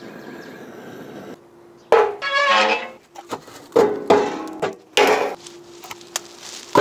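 A handheld butane torch hissing steadily as it lights wood-wool fire starters. It stops after about a second and a half, and several loud clanks and wooden knocks follow as a steel chimney starter and split firewood are set on a smoker's firebox.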